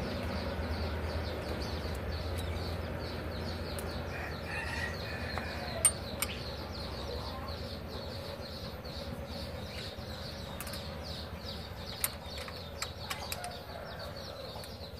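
A few sharp metal clicks, the loudest about six and twelve seconds in, as a ring spanner and screwdriver work the valve-clearance adjusting screws and locknuts on a Mitsubishi Canter diesel engine's rocker arms. Behind them, birds chirp rapidly and steadily.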